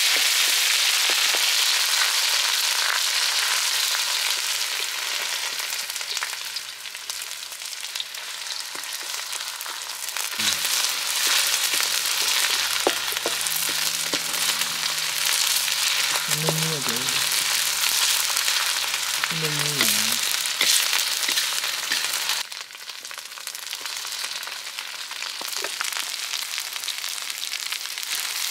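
Chicken curry frying with a steady sizzle. The sizzle drops abruptly in level about three quarters of the way through.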